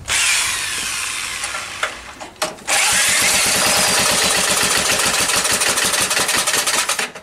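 Small stationary engine being spun over by an electric drill on its flywheel, catching about two and a half seconds in and then running with a fast, even beat. The owner puts a knock down to the flywheel sitting slightly off square on its key and hitting the guard.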